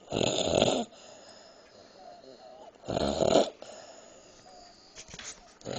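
A woman snoring loudly while asleep: two long snores about three seconds apart, with a third starting near the end.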